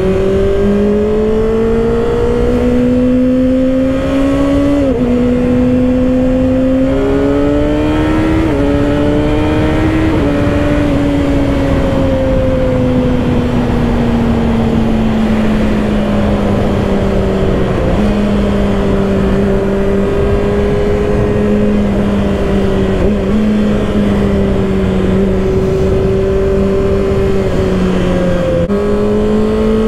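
Kawasaki ZX-6R inline-four sport-bike engine under way, with steady wind rush. The engine note climbs and steps down sharply a few times at gear changes, then sinks slowly as the bike slows, holds a steady cruising note for about ten seconds, and rises again near the end.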